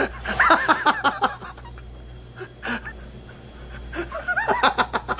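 A person laughing in short bursts, once at the start and again about four seconds in, over a steady low hum, with a few light clicks in between.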